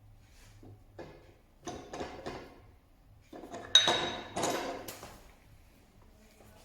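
Metal parts being handled in a workshop: a few light knocks and clinks, then a sharp metallic clank with a brief ring a little past halfway, followed by more clattering.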